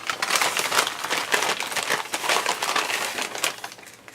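Packaging crinkling and rustling as items are handled and unwrapped by hand, a busy irregular crackle that dies down near the end.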